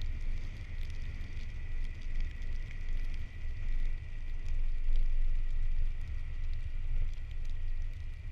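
A car driving: a steady low rumble of engine and tyres on the road, with a faint steady high whine over it.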